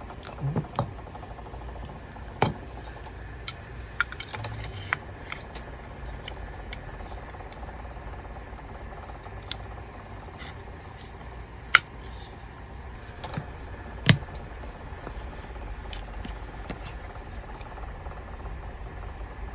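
Small plastic and metal parts of a Krytac Maxim 9 gas-blowback airsoft pistol clicking and knocking as they are handled and fitted into the frame. Scattered sharp clicks, the loudest about 12 and 14 seconds in, over a steady low hum.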